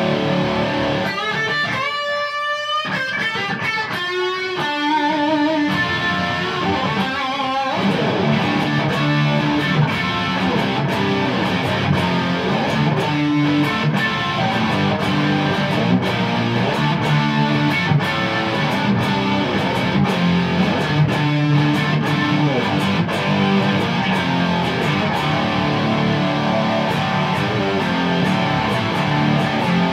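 Electric guitar played through a 1971 Marshall Superlead valve amplifier head and cabinet: a few held lead notes with wide vibrato in the first seconds, then continuous chord and riff playing.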